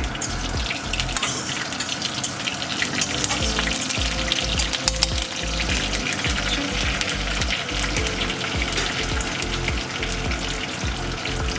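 Mustard seeds and curry leaves sizzling in hot oil in a kadai, a tadka (tempering), with a steady hiss and many small crackles.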